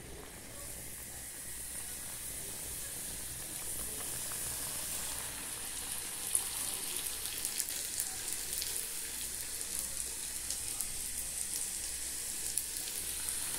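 Pastel dough frying in hot oil in an aluminium pot: a steady sizzle dotted with small crackles and pops, starting as the pastry goes in and growing louder over the first few seconds.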